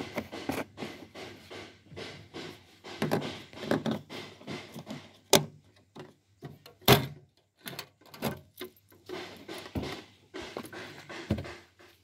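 Irregular knocks, taps and plastic clatter of hands handling a plastic jerry can, its screw cap and a cut plastic-bottle funnel at a tractor's fuel filler, with two sharper knocks about five and seven seconds in.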